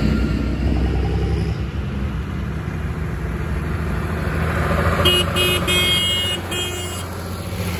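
Diesel tractor engines running steadily as a procession of tractors drives past. About five seconds in, a horn toots four times in quick succession, the third toot the longest.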